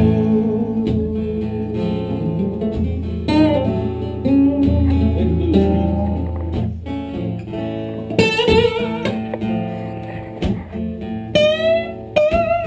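Live guitar instrumental break in a slow blues style: a strummed acoustic guitar holds the chords while a lead guitar line plays bent, wavering notes, most plainly about two-thirds of the way in and again near the end.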